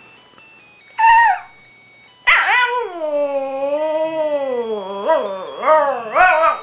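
Shih Tzu howling along to a faint electronic Christmas tune from a musical toy: one short falling howl about a second in, then a long wavering howl, then several quick rising-and-falling howls near the end.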